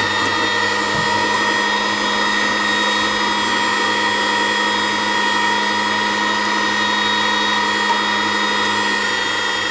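Electric meat grinder motor running steadily at an even pitch, fitted with its fine plate for a second pass of the chicken and fat mince.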